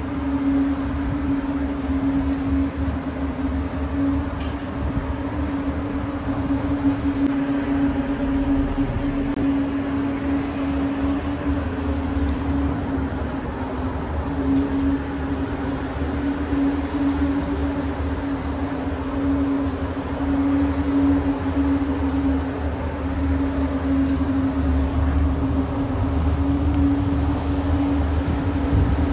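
Large motor yacht's machinery running while it maneuvers to dock: a steady low hum over a deep rumble.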